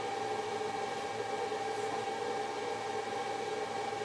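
A steady hum and hiss from a running machine, with two constant tones and no change in level.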